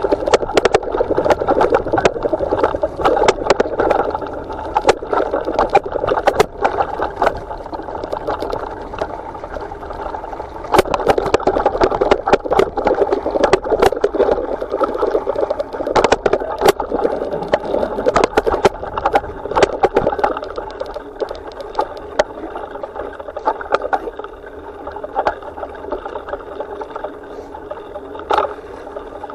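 Steady ride noise from a vehicle moving along a rough dirt trail, with frequent sharp rattles and knocks as it bumps over the ground. It eases a little in the second half.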